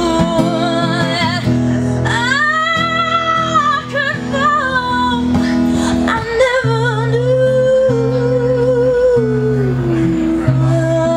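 A woman singing a slow song live, holding long wavering notes, over acoustic guitar accompaniment.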